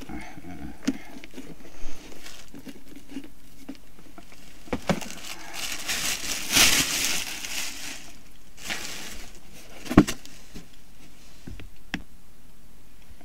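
Handling noises from unpacked purchases: a few sharp knocks, the loudest about ten seconds in, and a stretch of crinkling rustle around the middle.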